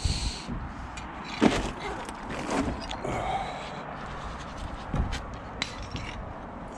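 Work boots stepping on exposed roof timbers and boards, with a few knocks, the sharpest about a second and a half in, and a brief rustle at the start.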